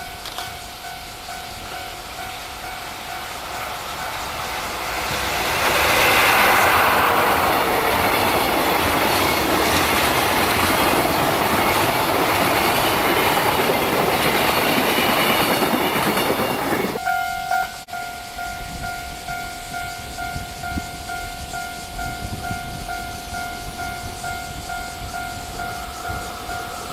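A Japanese level-crossing warning bell rings over and over in a steady two-tone ding. About five seconds in, a train passes loudly for around twelve seconds and drowns the bell. The bell keeps ringing after the train has gone.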